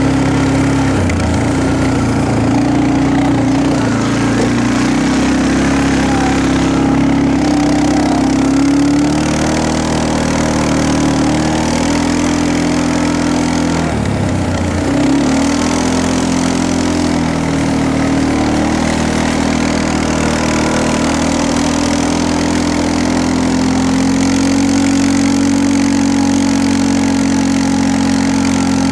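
Engine of a vehicle towing a sled, running steadily, its pitch dipping and recovering about a second in and again around the middle as the throttle eases off and comes back on.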